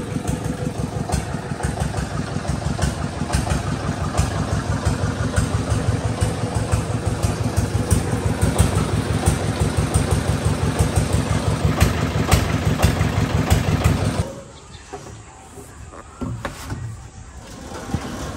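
An engine running steadily with a fast, even pulsing beat. It cuts off abruptly about fourteen seconds in, leaving only faint knocks.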